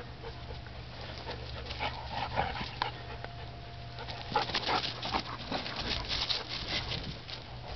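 Two dogs, a Bouvier des Flandres and a Catahoula Leopard Dog, play-wrestling: panting, snuffling and scuffling against each other, with short whimpers. The scuffling is busiest in the second half.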